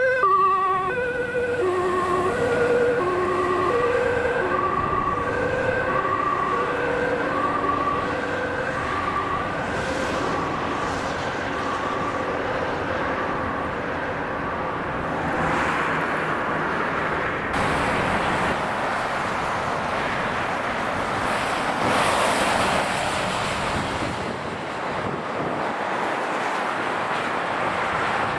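An emergency vehicle's two-tone siren alternating between a high and a low note and fading away over the first ten seconds. Then the steady rush of motorway traffic, swelling as a vehicle passes about halfway through.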